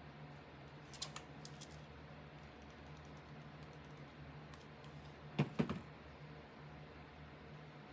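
Light clicks and taps from handling a hot glue gun over a cutting mat: a click about a second in, a few faint ticks, and a louder double knock about five and a half seconds in. A steady low hum runs underneath.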